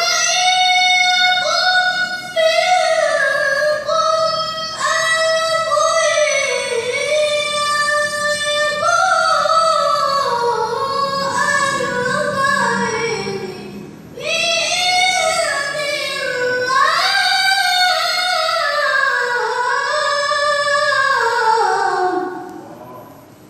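A boy's high voice reciting the Quran in melodic tilawah style: long ornamented phrases that slide up and down in pitch. There is a brief break for breath partway through, and the last phrase falls away near the end.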